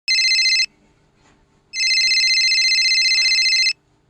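Telephone ringing: a short ring, then after a pause a longer ring of about two seconds, each a steady high trilling tone.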